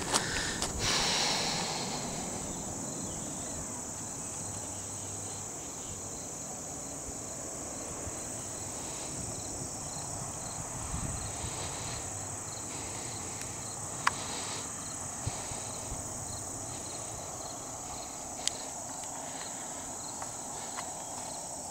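Steady high-pitched insect chorus of crickets, with a softer chirping pulsing at a regular beat beneath it. A few short clicks stand out about two-thirds of the way through and again near the end.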